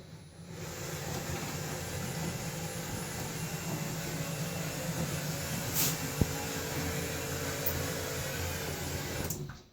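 Garage door opener motor running steadily as it drives a wooden dumbwaiter box along garage door rails, with a single sharp click past the middle; the motor stops abruptly near the end.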